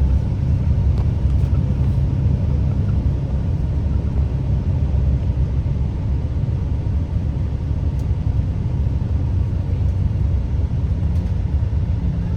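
Bus engine and road noise heard inside the cabin while driving: a steady low rumble.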